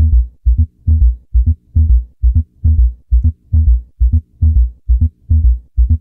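Recorded heartbeat heard through a stethoscope: low thuds in clusters of two or three, coming about twice a second. It is a gallop rhythm, with the extra third and fourth heart sounds (S3 and S4) alongside S1 and S2. Heard together, these point to congestive heart failure.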